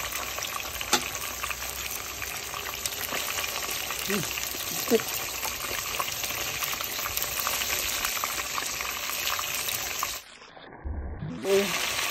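Whitefish pieces frying in hot oil in a pot: a steady sizzle with occasional sharp pops, and a wooden spatula stirring and turning the fish. The sizzle cuts out briefly about ten seconds in.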